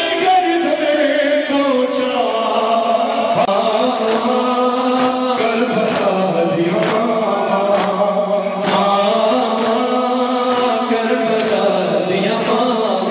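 A noha, the Shia mourning lament, chanted by male voices. From about four seconds in, sharp slaps come about once a second, the rhythmic chest-beating (matam) that keeps time to a noha.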